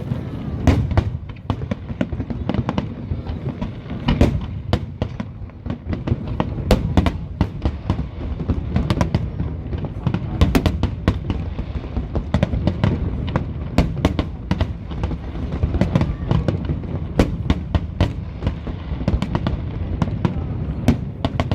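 Aerial fireworks bursting in quick succession: many sharp bangs, several a second at times, over a continuous low rumble of booms echoing back.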